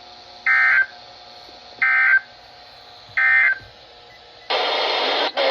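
NOAA Weather Radio's EAS end-of-message signal: three short bursts of SAME data tones about 1.3 seconds apart, marking the end of the severe thunderstorm warning. A loud hiss like radio static starts about a second before the end.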